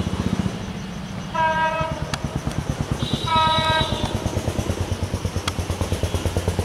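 Diesel locomotive air horn sounding two blasts, a short one about a second and a half in and a longer one about three seconds in, over the steady low throb of the locomotive's idling diesel engine.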